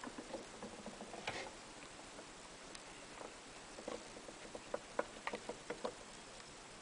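Faint scratching and light clicking of a small pet rodent moving about on wood-shaving bedding and wooden boards, with a run of sharper clicks in the second half as it reaches a clay dish of seeds.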